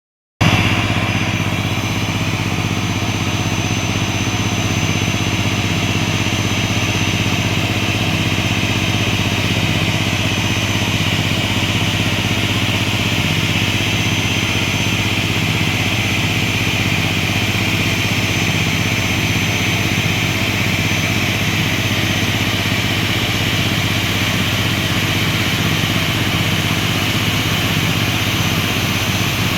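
Steady engine noise running without change: a low hum with a hiss on top, typical of machinery idling on an airport ramp.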